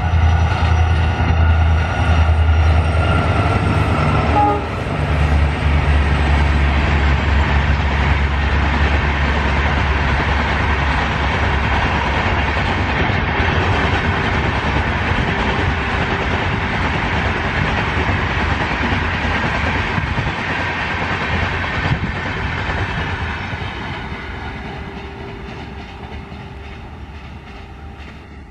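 WDP4B diesel-electric locomotive with a 16-cylinder EMD 710 two-stroke engine passing with a passenger train. A deep engine drone comes first, then the steady rush and rail clatter of the coaches going by, which fades over the last few seconds.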